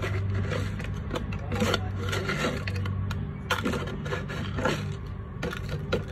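Irregular scraping and rubbing knocks over a steady low hum, which fades about three seconds in.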